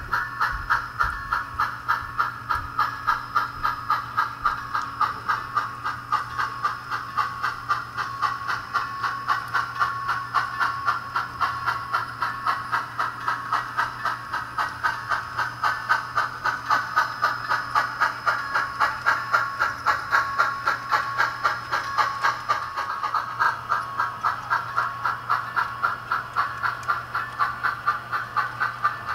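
Sound decoder in an HO-scale brass N&W K1 steam locomotive model playing steady, rhythmic exhaust chuffs with a hissing edge through the model's small onboard speaker as the engine runs.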